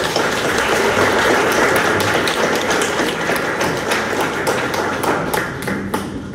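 Audience applauding: dense, steady clapping that tapers off near the end.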